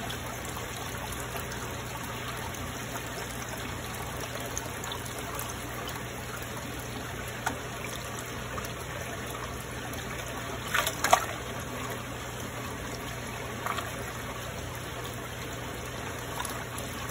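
Steady trickle of running water with a low hum underneath, broken by a brief sharp sound about eleven seconds in and a couple of fainter ones.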